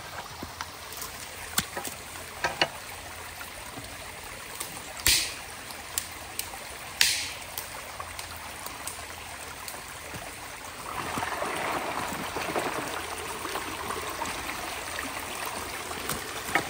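Water trickling and running through a culvert that is being cleared of debris, getting louder about eleven seconds in. Two sharp knocks stand out, about five and seven seconds in.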